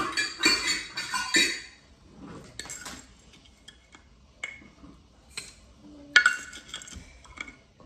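Sugar poured from a measuring cup into a stainless-steel mixer bowl, a dense rattling hiss in the first two seconds. Then scattered clinks of the cup against a glass storage jar and the bowl; the loudest, which rings briefly, comes about six seconds in.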